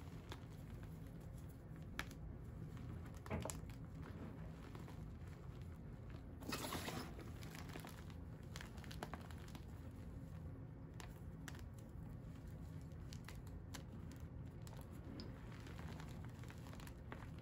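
Hands squeezing and crumbling dry pink dyed-and-dried blocks and their powder: soft, scattered crunching and crackling, with a louder crunch about six and a half seconds in.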